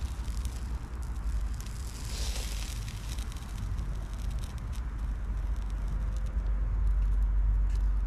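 Small wood cooking fire crackling with scattered sharp pops under a pot, with a brief hiss about two seconds in. A low rumble runs underneath and grows louder in the second half.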